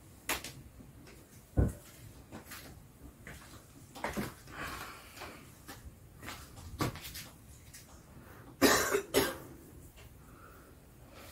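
A person coughing several times in short bursts, loudest as a quick double cough near the end. A single sharp thump comes about a second and a half in.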